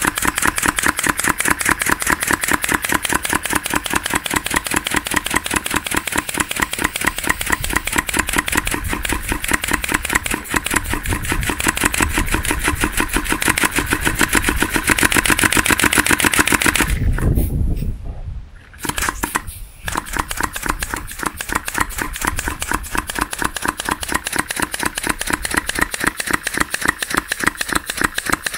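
Small 3D-printed V-twin compressed-air engine running, each quick exhaust valve releasing air with a sharp crack in a rapid, even popping rhythm. About two-thirds of the way through it cuts out for about two seconds, then picks up again.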